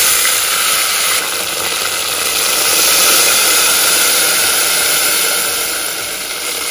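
Liquid kadhi batter of yogurt and ground chana dal poured through a steel mesh strainer into hot tempering oil, setting off a loud, steady sizzling hiss that eases slightly near the end.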